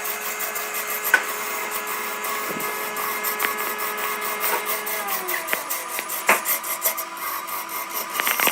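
Wood lathe running with a steady motor hum while wood on it is rubbed and scraped, with scattered sharp clicks. About five seconds in the hum falls in pitch and fades as the lathe spins down.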